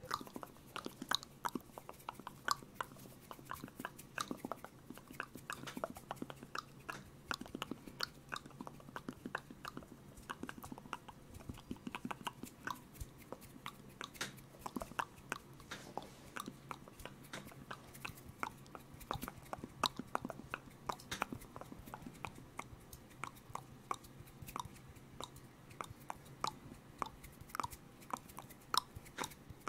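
Close-miked ASMR mouth sounds: an irregular run of short wet clicks and smacks, several a second, made right into a condenser microphone.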